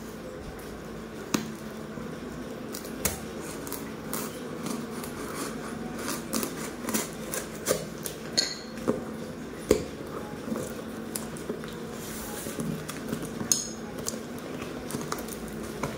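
A knife slitting and scraping through the packing tape of a cardboard parcel, then hands tearing the tape and cardboard open, with scattered sharp clicks and knocks.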